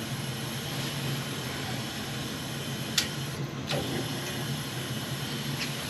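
Water being fed into a steam boiler through its fill line: a steady hum with a hiss, and a single click about three seconds in.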